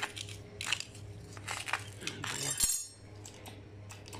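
Steel parts clinking and rattling together as the press tooling is lined up over a bushing, with one sharper metallic knock about two and a half seconds in.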